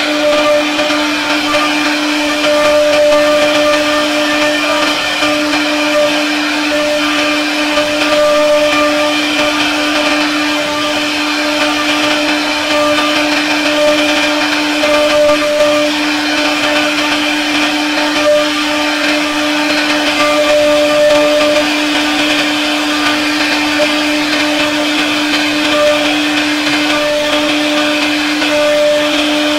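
CNC router spindle running at speed while its bit carves a relief pattern into a wooden door panel. A steady pitched whine over an even rushing noise, with no pauses or changes.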